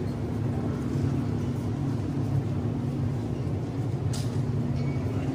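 Steady low rumble of a vehicle travelling, with a constant hum running through it and a light click about four seconds in.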